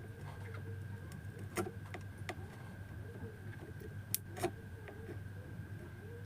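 A few sharp small clicks and taps from hand tools working on a circuit board as the transformer's wires are taken off, over a steady low hum.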